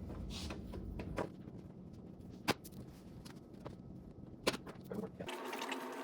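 A few sharp plastic clicks and light scraping as a pry tool works stripped plastic trim screws loose, the loudest clicks about two and a half and four and a half seconds in.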